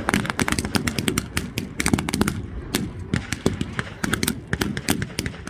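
Reenactment small arms and machine guns firing blanks: many sharp shots in dense, irregular, overlapping strings, over a low rumble.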